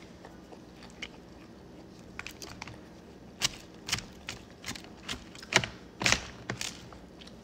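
Plastic fork clicking and scraping against a plastic takeout container while spearing salad: a run of short, sharp clicks starting about two seconds in, the loudest a little before the end.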